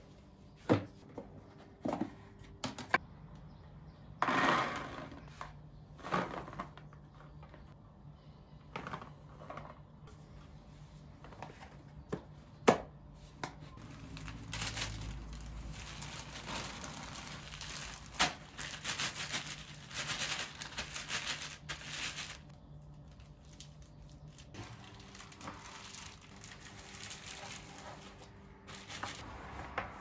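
Food-prep handling noises: a metal slotted spoon knocking against a glass bowl, plastic food containers being set down, and a clear plastic bag crinkling as peas are spooned into it. Scattered sharp knocks and clicks, with a longer stretch of crinkling about two-thirds of the way through.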